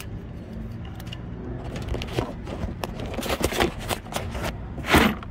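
Small metal parts clicking and scraping as a metal Romex cable connector is handled at a fan motor's junction box, with a louder brief rub near the end, over a low steady rumble.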